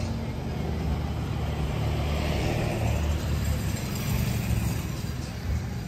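A motor vehicle engine running with a steady low sound, and a swell of higher noise about two seconds in, as of a vehicle going past.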